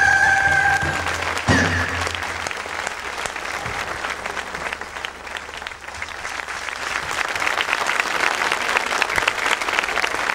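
A held clarinet note ends the tune about a second in, followed by a short final hit from the band. Then a studio audience applauds, the clapping growing a little louder toward the end.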